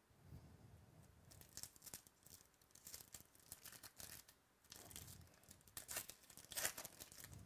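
Quiet crinkling and tearing of a foil trading-card pack wrapper being ripped open by hand, a run of short crackling rustles, the loudest near the end.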